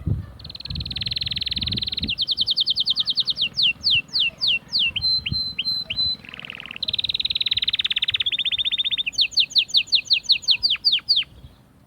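Canary singing a long song: fast, rattling trills that alternate with phrases of repeated down-sweeping whistled notes, which slow down toward the end of each phrase. About halfway through there is a short lower buzzy note, and the song then begins again with fast trills.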